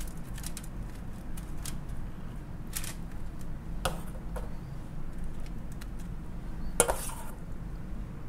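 A metal spoon clicking and scraping against lobster shell and aluminium foil as a soft scallop-and-mayonnaise topping is spooned onto halved lobsters, with a sharp click about seven seconds in. A steady low hum runs underneath.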